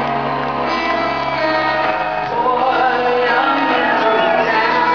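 Rock band playing live through an arena PA, a woman singing over the band, recorded from the crowd.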